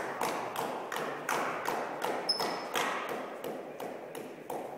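Table tennis balls clicking off bats and tables in a sports hall, irregular sharp knocks about three a second, with a brief high squeak about two seconds in.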